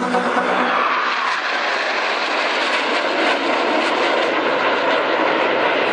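Steady rushing jet noise from a formation of Northrop F-5E Tiger II fighters, each powered by two General Electric J85 turbojets, heard from the ground. Music fades out under it in the first second.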